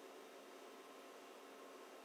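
Near silence: room tone, a faint steady hiss.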